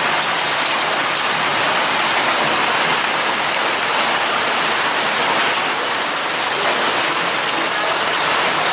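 Heavy rain pouring down, a loud steady hiss of drops hitting surfaces with a few faint ticks of individual impacts.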